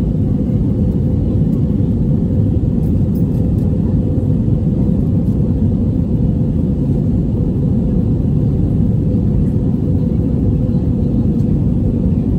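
Airbus A321 cabin noise in flight: a steady low roar of engines and rushing air, heard from inside the passenger cabin.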